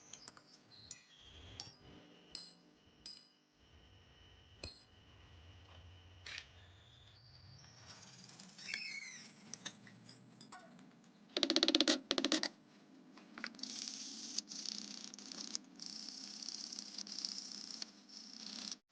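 Light metallic clicks and taps of small metal parts being handled, then a loud burst lasting about a second, followed by a steady hiss.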